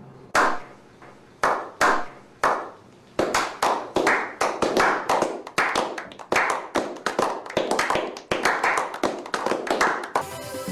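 A slow clap: single hand claps well apart at first, then quickening as more hands join, building into the steady clapping of a small group of men, about three claps a second.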